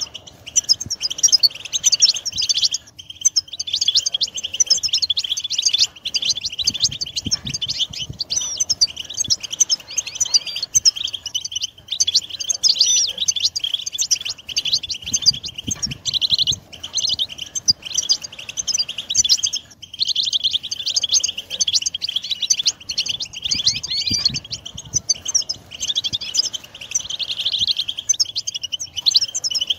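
European goldfinch song: rapid, liquid twittering, near-continuous with a few short breaks.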